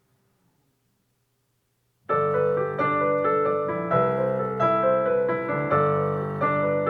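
Near silence, then a piano intro starts about two seconds in, playing steady repeated chords.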